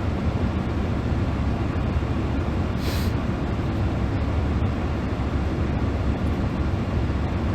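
Steady low rumble throughout, with one short airy hiss about three seconds in.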